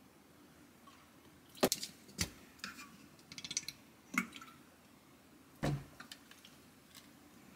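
Plastic laundry-detergent and softener bottles being handled at a washing machine: caps clicking and twisting, and several sharp plastic knocks. There is a quick run of small ratcheting clicks in the middle and a duller thud near the end.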